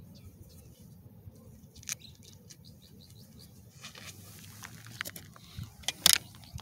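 Camera handling noise: a few small clicks and scrapes, then louder knocks about five to six seconds in as the camera is picked up and moved. A faint low steady hum runs underneath.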